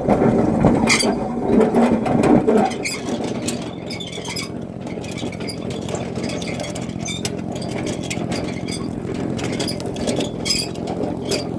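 An engine running steadily at idle, with scattered rattling clicks throughout and a louder scraping, rustling stretch in the first couple of seconds.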